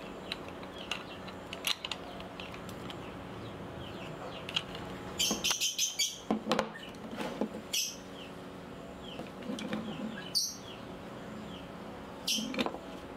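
Wooden vise parts handled and fitted together by hand on a workbench: a few clusters of knocks, clicks and scrapes of wooden blocks and a steel threaded rod, loudest in the middle and again near the end. Faint bird chirps run underneath.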